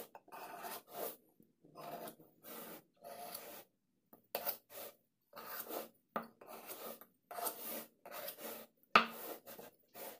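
Knife blade scraping along the rim of a metal springform pan, trimming off excess shortcrust dough in a series of short, irregular strokes.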